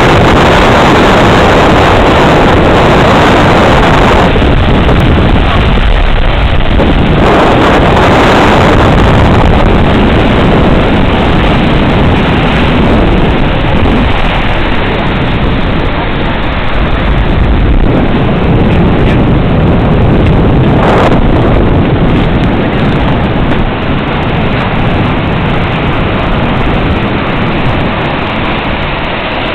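Steady rushing roar of Montmorency Falls, water pouring behind its winter ice cover. It eases slightly near the end.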